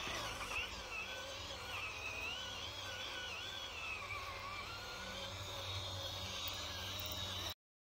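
Electric drive motor and gearing of an FTX Buzzsaw RC toy tank whining as it is driven over grass. The pitch wavers up and down with the throttle, and the sound cuts off abruptly near the end.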